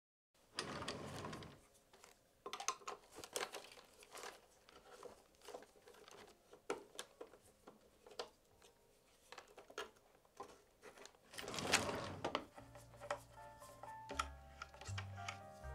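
Scattered clicks, taps and crinkling handling noises, with two brief rushes of noise, the second about eleven seconds in; background music with a bass line starts about thirteen seconds in.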